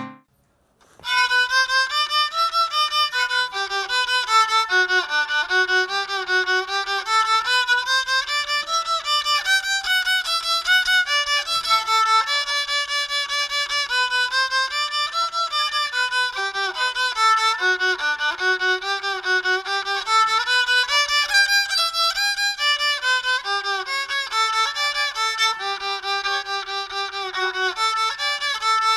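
Violin étude played by an eight-year-old: a single melody line of quick running notes, starting about a second in.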